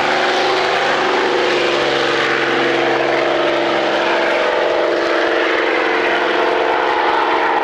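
Propeller aircraft's piston engine running steadily, with an even droning pitch.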